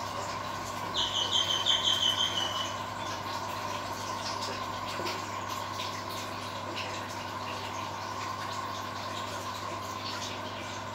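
A bird gives a rapid trill of about eight high chirps about a second in, falling slightly in pitch. Under it, the steady hum and bubbling of an aquarium's air pump and filter.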